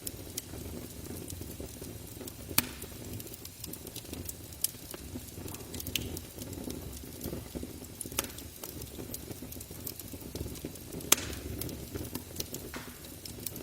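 Campfire burning with a steady low crackle and scattered sharp pops of burning wood, the loudest about two and a half seconds in and near eleven seconds in.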